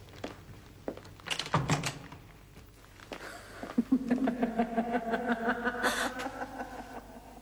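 A door thumps shut about a second and a half in. From about three and a half seconds a sustained pitched sound pulses about six times a second until near the end; this is the loudest part.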